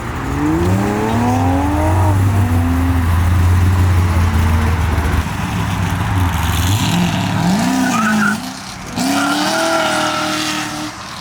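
A Chevrolet Corvette C6's V8 accelerating hard away from a standstill. The revs climb and drop back at each upshift, with several gear changes, over the low steady hum of an idling engine.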